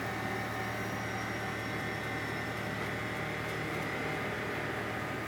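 Mobile crane's engine running steadily while it holds a suspended building module, a low drone with a steady high whine over it.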